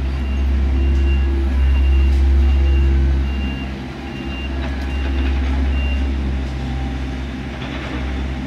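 A work vehicle's backup alarm beeping at a steady pace, a little faster than once a second, and falling silent about six seconds in, over the low steady rumble of a heavy diesel engine.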